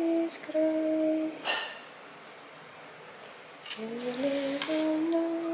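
A woman's voice humming a slow tune in long held notes, in two phrases with a pause between, the second rising in pitch. About a second and a half in, a short scrape, fitting the knife trimming tart pastry.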